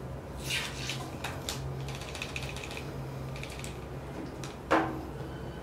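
Ear irrigation of a dog's ear: a syringe flushing the ear canal and fingers working the flushed ear, giving a run of sharp clicks and crackles, then one louder short sound near the end. A low steady hum runs underneath.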